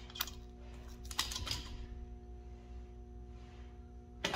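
Small metal clicks and clinks from a valve spring compressor being eased off and lifted away from a valve spring on a cast-iron big-block Chevy cylinder head. There is one click just after the start, a short cluster about a second in, and a sharper click near the end.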